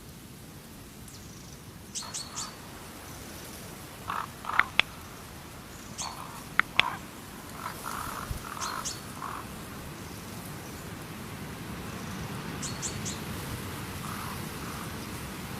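Birds calling: scattered short calls, some as quick runs of about three high chirps and others as lower short notes in small clusters, with a few sharp, louder clicks a third to halfway through.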